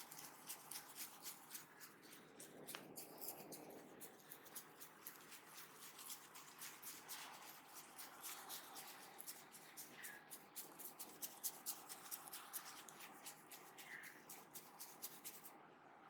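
Faint, quick taps and rubbing of a barber's hands on a person's head and hair during a head massage, about four light taps a second.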